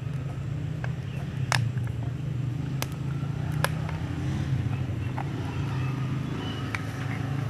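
Plastic screw cap of a one-litre engine-oil bottle being twisted off, giving a handful of short sharp clicks spread over several seconds. A steady low engine-like hum goes on underneath.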